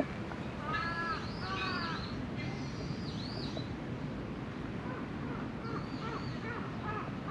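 Crows cawing: two drawn-out caws about a second in, a couple more around the middle, then a quick run of short caws near the end.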